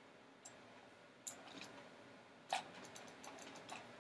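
Faint, scattered clicks of a computer mouse and keys as objects are selected and moved in 3D software, the loudest about two and a half seconds in.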